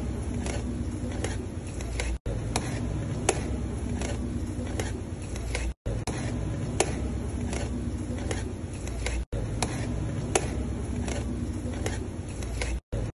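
A knife cutting along a metal tray of crisp shredded-pastry (kunafa) rolls: crunching and scraping, with sharp ticks of the blade against the tray over a steady background hum. The same few seconds repeat about four times, each repeat split from the next by a brief cut-out.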